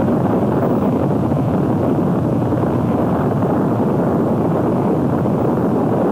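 The roar of the 1974 Guin, Alabama F5 tornado on a home tape recording made with the recorder in an open window. It is a steady, dense rush of wind noise, heaviest in the low and middle range, with no breaks.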